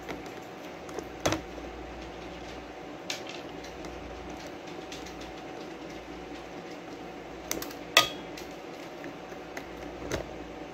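Scattered sharp clicks and light scrapes of a small metal hand tool picking at burnt component fragments on a speaker's power-supply board, the loudest click about eight seconds in, over a faint steady hum.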